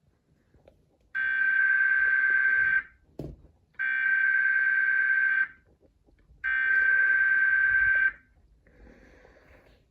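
Emergency Alert System header tones from a television broadcast: three bursts of buzzing digital data tones, each under two seconds long and about a second apart, the SAME header that starts an alert.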